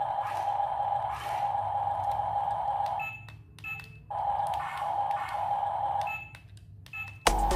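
Huina 1510 remote-control excavator's small electric gear motors whining steadily as the boom and body move, cutting out twice for about a second, with light clicks as they stop and start.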